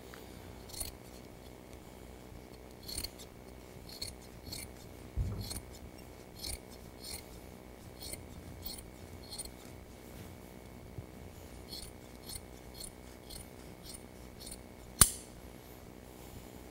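Scissors snipping through thick jute carpet padding in a run of short cuts, up to about two a second, with one sharper click near the end.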